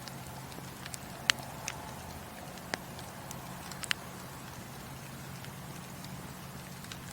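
Wood fire burning in a fireplace, a steady hiss with scattered sharp pops and crackles; the loudest pop comes about a second in, with a few more over the next three seconds.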